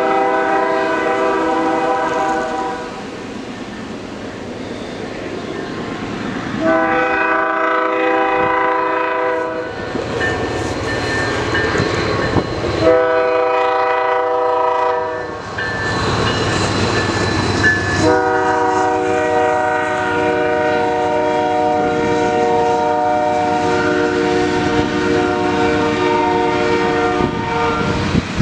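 Diesel locomotive's multi-note air horn sounding four blasts, the last held for about ten seconds, the warning pattern for a road crossing, with the rumble of the approaching freight train beneath.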